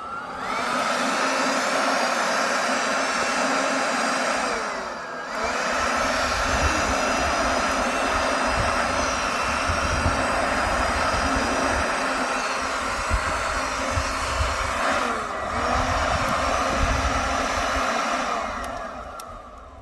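A small electric motor whirring steadily, most likely a fan or blower. It spins up at the start, briefly slows and picks up again twice, and winds down near the end.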